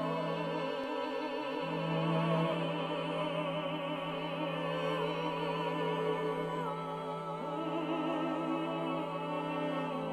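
Music: operatic singing, long notes with wide vibrato over a sustained low orchestral accompaniment.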